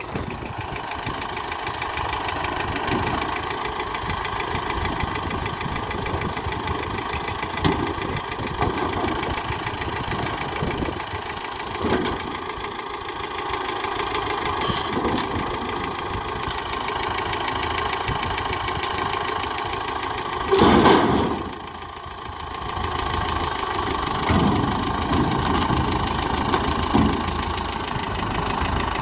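Farm tractor engine running steadily at low speed as the tractor is driven down off a trailer, with scattered knocks and one brief loud clatter about two-thirds of the way through.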